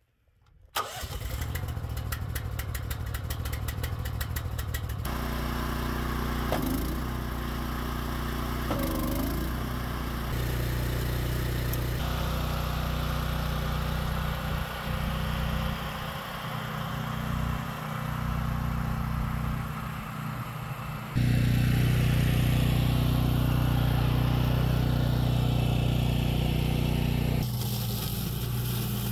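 BCS 853 walk-behind tractor's gas engine starting by its key switch about a second in, then running steadily; its pitch and loudness jump abruptly several times.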